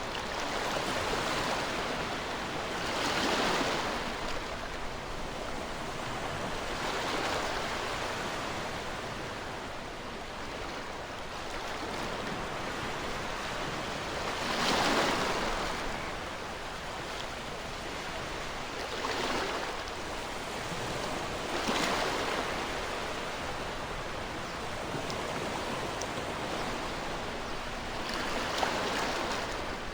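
Ocean waves breaking and washing on a shore, a steady rush of surf that swells every few seconds, with stronger breaks about three and a half, fifteen and twenty-two seconds in.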